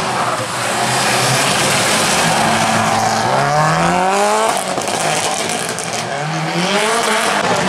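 Subaru Impreza WRX STi rally car's turbocharged flat-four engine revving hard under acceleration out of a corner, its note climbing about three seconds in, dropping sharply at a gear change, then climbing again near the end. The tyres hiss on the wet tarmac.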